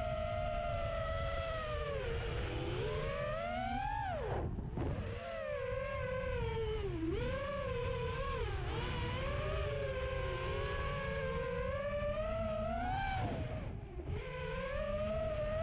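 FPV quadcopter's electric motors and propellers whining, the pitch rising and falling with the throttle; the whine drops away sharply twice, about four and a half seconds in and near the end, then climbs back. A steady low rumble of wind and prop wash on the drone's onboard microphone lies beneath it.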